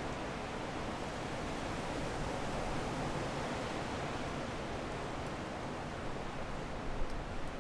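Strong wind blowing steadily, a dense rushing noise with no let-up, and a few faint sharp ticks near the end.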